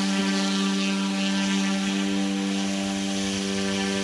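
OMPHOBBY M2 Explore electric RC helicopter resting on its landing box with its motor and main rotor still spinning at a steady speed: an even buzzing hum with several overtones.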